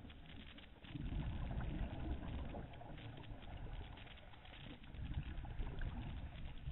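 Underwater noise picked up by a diving camera: a low rumble with scattered crackles and clicks, swelling louder about a second in and again near the end.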